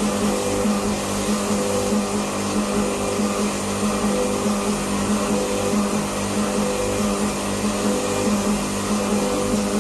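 A machine running with a steady whirring drone and a low hum, with no break or change in pace.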